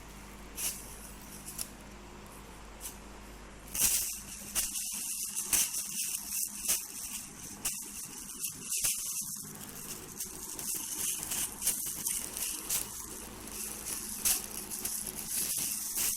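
Plastic crinkling and rustling as a kitten plays with it: a few sharp crackles, then near-continuous rustling from about four seconds in.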